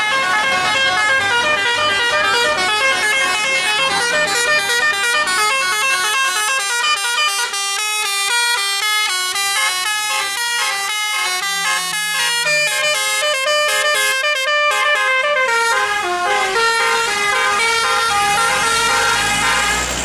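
Tour bus's telolet basuri musical horn, an electric multi-trumpet air horn, playing a fast tune of stepped notes.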